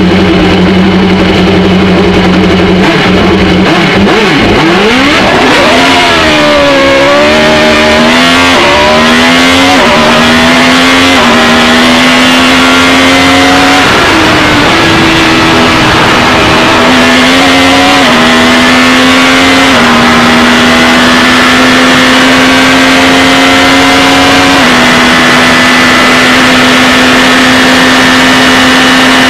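Formula 1 car engine heard from on board: it holds a steady idle for about four seconds, then revs up as the car launches and climbs in pitch through a series of upshifts, each marked by a sudden drop in pitch. About halfway it falls away and dips, then climbs through the gears again to a steady high note near the end.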